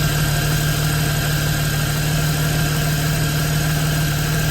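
Car engine idling steadily, with its serpentine belt drive running, and a faint steady high tone above the engine hum.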